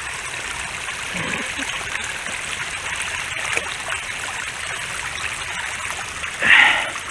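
Steady rush of shallow river water flowing, with a brief louder burst near the end.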